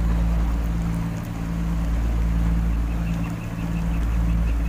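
A boat engine idling: a steady low drone that does not change. A faint, rapid, high ticking joins it about three seconds in.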